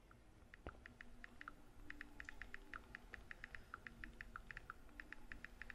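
Thumb-typing on a smartphone: a quick, irregular run of light tapping clicks, several a second, starting about half a second in.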